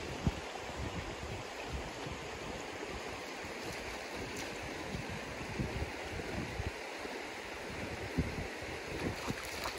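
River water running and lapping over shallow stones: a steady rushing hiss, with a few faint splashes near the end.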